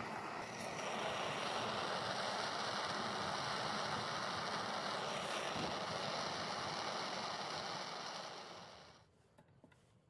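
Small handheld gas torch burning with a steady hiss as it heats a copper tube joint for soldering. The hiss grows louder about a second in and dies away near the end.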